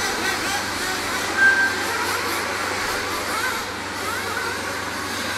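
Nitro-powered RC buggies and truggies racing, their small glow engines buzzing and revving up and down in pitch. A short, steady electronic beep sounds about one and a half seconds in.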